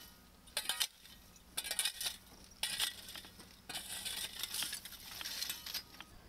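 A shovel scraping and digging through ash and burned debris in four bouts: three short strokes, then a longer spell of about two seconds.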